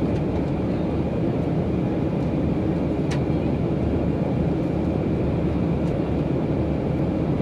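Steady cabin noise of a Boeing 737 airliner on approach, engines and airflow heard from inside the cabin, with a faint steady whine above it. A brief click about three seconds in.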